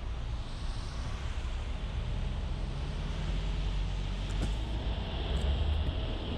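A vehicle driving along a road: a steady low engine and tyre rumble with road noise, and a few faint clicks about two thirds of the way through.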